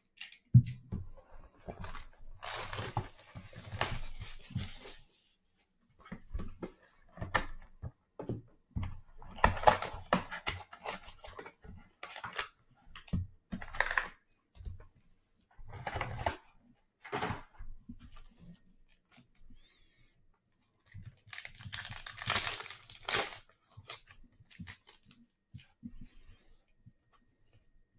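Plastic wrapping and foil trading-card packs being torn open by hand, in several separate bursts of tearing and crinkling, with small knocks and clicks of cardboard and cards being handled in between.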